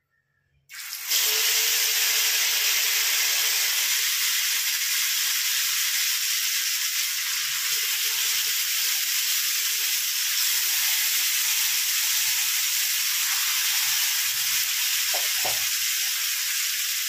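Masala-coated pomfret pieces sizzling in hot oil in a nonstick frying pan. The sizzle starts suddenly about a second in as the first pieces go into the oil, then runs loud and steady; a light knock sounds near the end.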